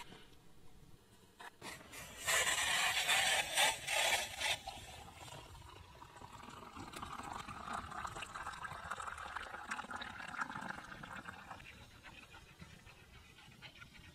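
Hot water poured from a cooking pot into a metal cup of hot chocolate: a loud splashing pour for about two seconds, then a quieter steady trickle for several seconds.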